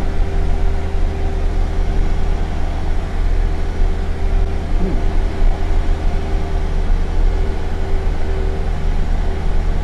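Single-engine light aircraft's piston engine and propeller running steadily in flight, a constant drone heard inside the cabin.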